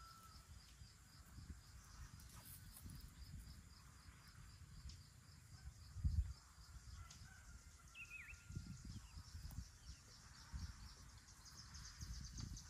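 Faint open-field ambience: distant small birds give a few thin whistles and a short falling chirp, over a steady high ticking at about three a second. Low wind rumble on the microphone swells briefly about six seconds in.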